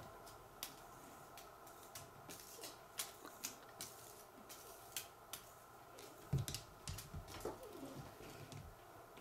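Scattered light clicks and taps of a cat batting at a beaded wand toy on a wooden floor, with a soft thump a little past six seconds in.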